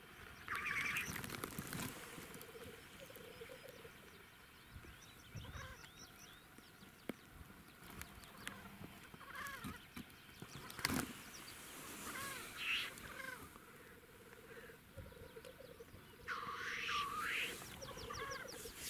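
Wild birds calling in the open: scattered short calls and a faint low trilling, with one sharp knock about halfway through.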